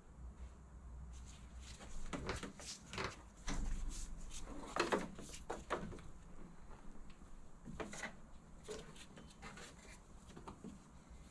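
Irregular light knocks, clicks and short scrapes of handling work, busiest between about two and six seconds in.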